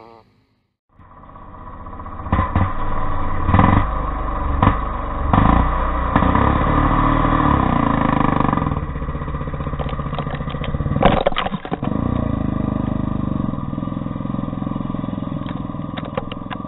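Honda CR500 two-stroke single-cylinder motocross bike taking off hard and running loud under full acceleration, starting about a second in and building quickly. Sharp knocks and ticks of thrown dirt hitting the camera come through several times.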